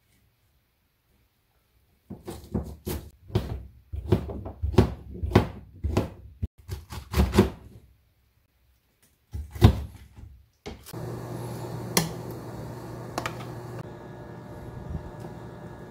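Kitchen knife chopping oyster and enoki mushrooms on a plastic cutting board: a run of sharp chops, about three a second, after a brief silence. Then a steady hum from a pot heating on an induction cooktop, with a sharp click partway through.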